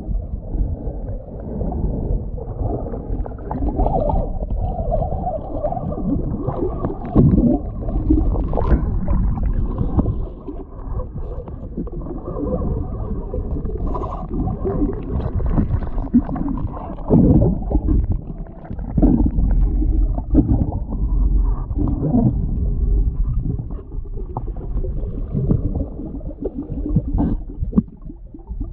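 Muffled underwater sloshing and gurgling of water moving around a submerged camera, with irregular low thumps and rumbles as the snorkeler moves.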